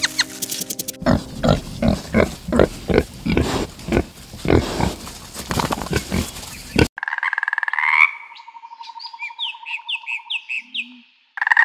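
Pigs grunting over and over, about three grunts a second, for some six seconds. Then it cuts to a frog calling with a buzzing trill, with a row of short high chirps over it.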